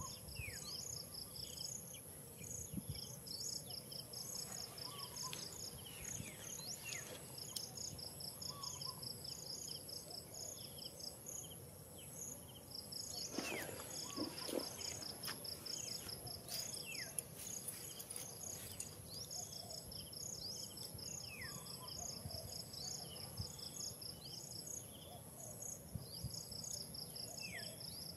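Insects chirping in repeated rapid trains over a steady high buzz, with a few short falling whistle-like calls scattered through. A brief louder noise comes about halfway through.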